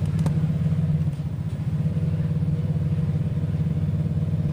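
A steady, loud low mechanical hum with a fast, even pulse.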